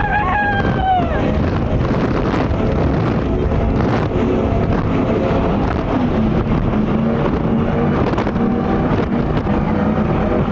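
Twin 700 hp engines of a 39-foot Cigarette Top Gun Unlimited offshore powerboat running hard at high speed through big waves, a loud, steady drone mixed with rushing wind and water.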